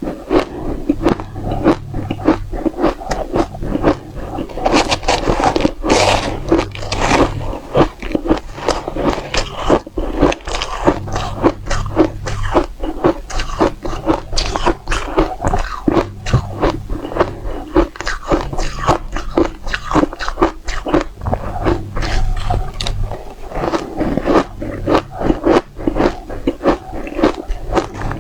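Close-up crunching of dry-textured ice being bitten and chewed, with dense, continuous sharp cracks and crackles.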